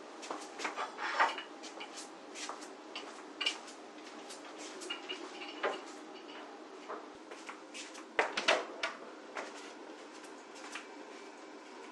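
Scattered clicks and knocks of household objects being handled and set down, like dishes, drawers and cupboard doors, loudest a little past a second in and again around eight seconds in.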